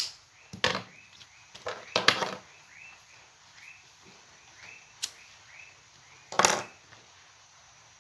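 Steel scissors snipping grosgrain ribbon: a sharp snip at the start and a few more short cuts in the first two and a half seconds. A single click about five seconds in, and another short burst of noise about a second and a half later.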